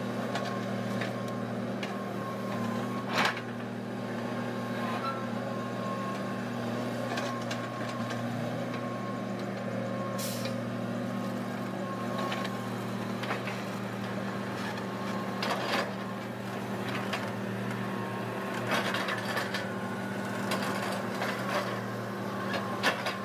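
Sumitomo SH210 hydraulic excavator's diesel engine running steadily under load, with a faint steady whine and a few sharp clanks as the bucket and arm work, the loudest about three seconds in.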